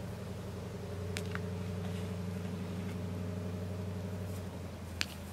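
Steady low motor hum with a few sharp pops of burning wood from a small campfire: two close together about a second in and a louder one near the end.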